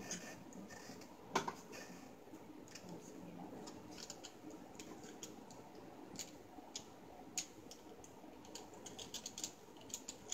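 Quiet, irregular small clicks and taps from parts of a ring light and tripod stand being handled and fitted together, with one sharper knock about a second and a half in and a quicker run of clicks near the end.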